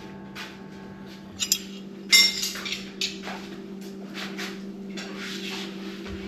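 Metal tools and parts clinking and clanking: a couple of sharp clicks, a loud clank about two seconds in, then a string of lighter scrapes and clinks, over a steady low hum.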